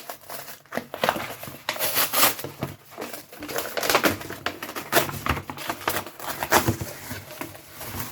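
Parcel packaging being handled and torn open: a run of irregular crackles, rips and rustles.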